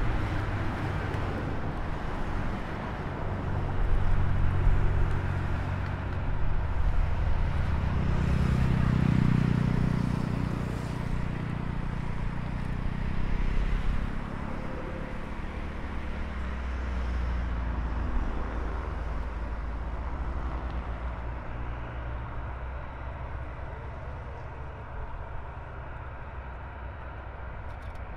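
Boeing E-3D Sentry's four CFM56 turbofans running at low power while taxiing, heard from afar as a steady low rumble that swells about eight to twelve seconds in, then eases off.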